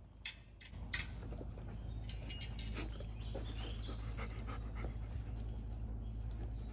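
Golden retriever puppy panting, over a low steady rumble that comes in under a second in, with scattered small clicks and rustles.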